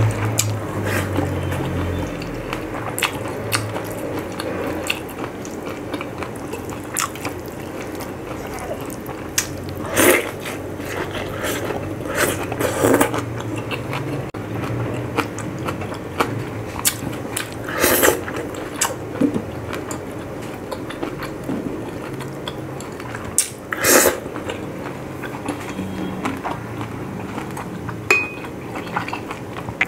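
Close-up eating sounds: a man chewing pork and rice, with wet mouth clicks and a few louder smacks spread through.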